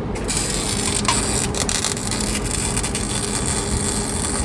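Electric welding arc struck and held: a steady frying crackle that starts abruptly at the outset and carries on, over a low steady hum.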